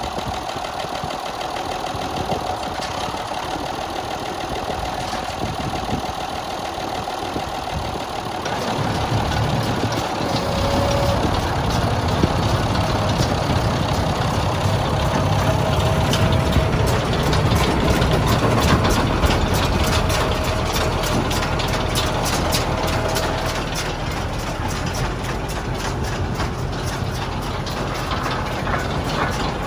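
New Holland baler running behind a tractor engine: a steady machine din that grows louder and heavier about eight seconds in, with a fast rattling tick through the middle.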